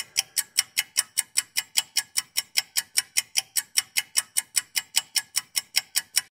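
Pocket watch ticking steadily at about five ticks a second, then cutting off suddenly at the end.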